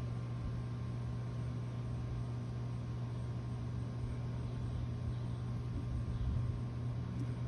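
Steady low hum with a light hiss, unchanging throughout, with no distinct event.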